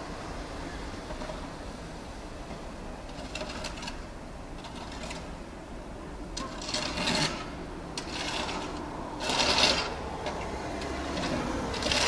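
Eurasian magpie giving harsh, rasping chatter in several short bursts, the loudest about nine and a half seconds in, over a steady low rumble.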